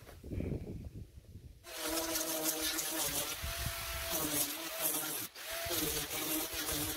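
Power sander starting abruptly about two seconds in and running against timber weatherboards, a hiss of abrasive on wood over a motor tone whose pitch dips and recovers as the sander is pressed to the boards. It breaks off briefly a little past five seconds.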